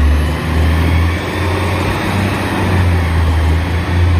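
Side-loader garbage truck's engine running with a steady low rumble as the truck drives.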